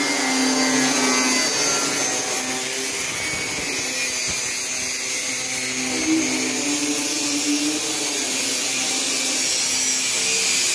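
Electric angle grinder running steadily against a steel sheet, a whine with a strong hiss over it; the pitch lifts briefly about six seconds in.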